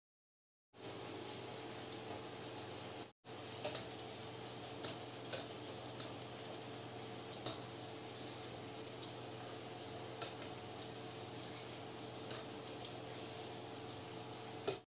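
Stuffed pastry deep-frying in hot oil in a wok: a steady sizzle with scattered sharp pops and crackles. It cuts out for an instant about three seconds in.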